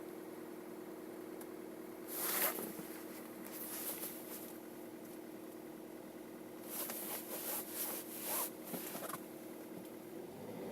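Kia Ceed engine idling steadily, with two spells of rustling and scraping over it, the second longer. Near the end the engine note shifts as the revs change.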